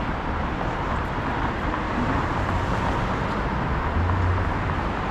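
Steady city street traffic noise, a low rumble of passing vehicles that swells briefly about four seconds in.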